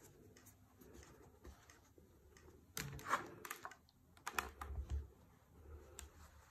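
Clothes iron being set down and pressed onto a folded fabric glasses case, with fabric being handled. A cluster of light clicks and taps comes about three seconds in, then more about four and a half seconds in, along with a low rubbing as the iron presses.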